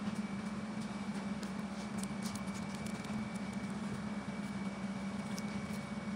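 Steady low machine hum with a faint high whine over it, and a short run of faint crackly clicks about two seconds in.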